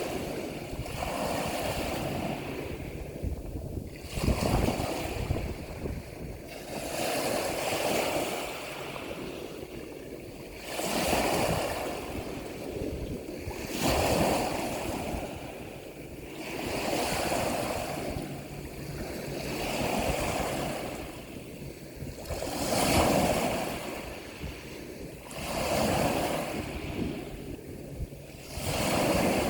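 Ocean waves surging and washing back, swelling about every three seconds in a steady rhythm.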